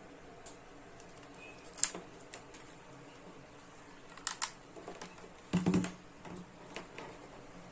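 Handling noise from a plastic-bodied soldering gun: a few sharp clicks and taps, a pair close together past the middle, then a duller knock as the gun is set down on a cutting mat.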